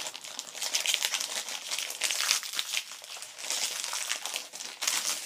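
Shiny plastic blind bag crinkling and crackling as hands squeeze and work it open, with irregular crackles throughout.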